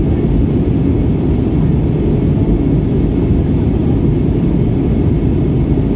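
Jet airliner cabin noise in flight: a steady, even drone of engines and rushing air heard inside the cabin, heaviest in the low end.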